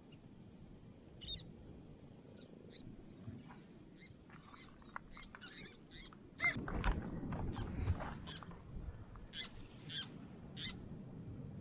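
Wild birds giving short, high chirping calls, scattered at first and coming thick and fast in the middle. About six and a half seconds in, a louder low rush swells for a couple of seconds.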